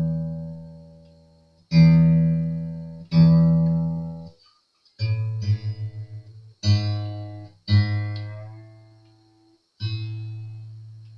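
Cheap acoustic guitar's open strings plucked one at a time while being tuned up after restringing: a higher string struck twice, then a lower string struck four times, each note ringing out and fading.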